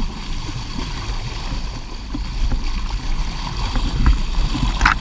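Water rushing and splashing along the hull of a moving boat, with a heavy low rumble, and a brief sharper sound near the end.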